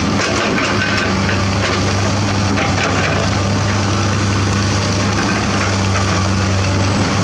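Komatsu PC200 excavator's diesel engine running steadily close by, a constant low hum over a dense mechanical noise.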